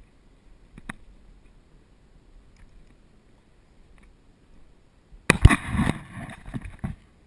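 Handling noise on the camera: after a few quiet seconds with one small click about a second in, a hand starts bumping and rubbing against the camera about five seconds in, a loud rustling scrape with several heavy thumps that lasts about two seconds.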